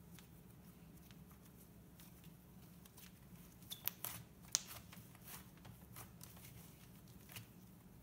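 Slime being kneaded and stretched by hand as soft clay is worked into it: faint sticky clicks and pops, with a quick cluster of sharper pops about four seconds in.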